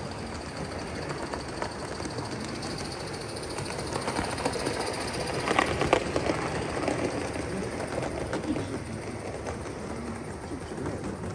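Large-scale live-steam model tank locomotive and its coaches running along the track, with wheels clicking over the rails. It is loudest about halfway through as the engine passes close.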